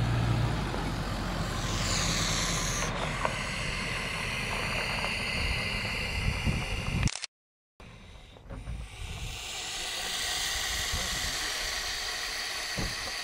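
A vehicle engine idling with a steady low hum; after a short dropout, a steady noise without a clear source.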